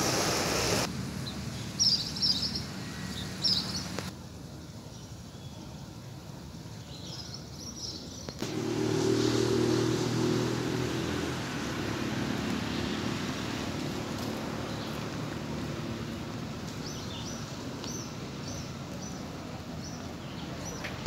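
Outdoor ambience: birds chirping now and then, and from about eight seconds in the low hum of a motor vehicle engine that slowly fades.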